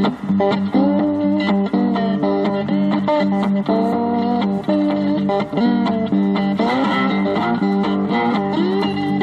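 Outro music: an electric guitar melody with bending notes over a steady bass line.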